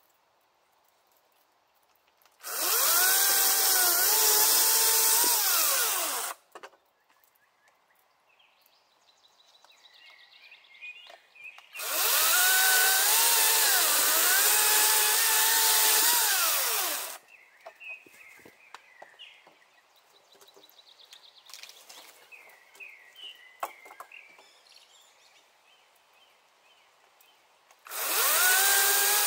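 Battery chainsaw powered by Makita batteries cutting through birch logs three times, each cut lasting about four to five seconds. The electric motor's whine dips in pitch as the chain bites into the wood and recovers as it runs free. Between cuts the saw is stopped.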